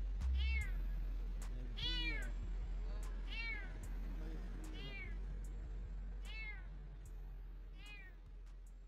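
A young stray cat meowing repeatedly: six calls, about one every second and a half, each rising and then falling in pitch. The calls grow fainter toward the end.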